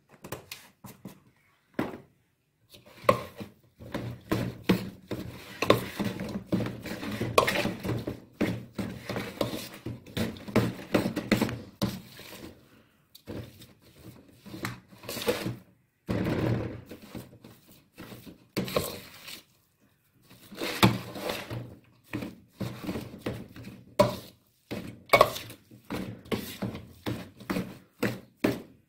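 Mashed boiled potato being mixed by hand with spices and herbs in a stainless steel bowl: irregular squishing with knocks and clatter against the steel, in bursts with short pauses.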